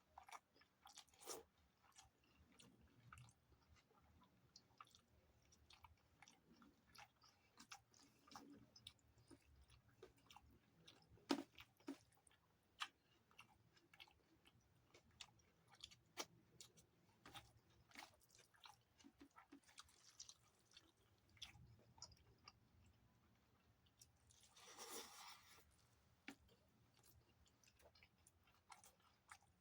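Close-miked chewing and wet mouth clicks of a person eating rice with dalma and chutney: many small, sharp smacks throughout, and near the end a longer rushing noise of about a second and a half.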